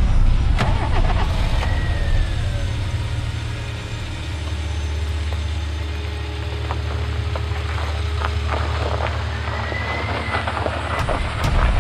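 Volkswagen car's engine running with a steady low drone, and a crackling, crunching noise of tyres on packed snow. Two brief arching high tones sound about two seconds in and near the end.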